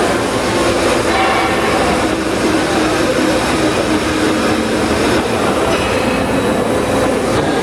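Oxy-fuel cutting torch running steadily through thick steel: a loud, continuous hiss and rumble with faint tones that shift in pitch.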